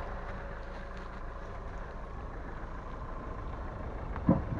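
A car engine running steadily, with a faint held whine over it. A short shout comes near the end.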